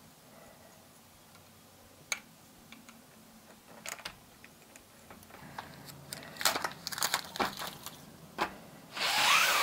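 Hands fitting a pleated blind to a window frame: scattered clicks of its plastic clips and handling, getting busier after about five seconds, then a loud rustle near the end.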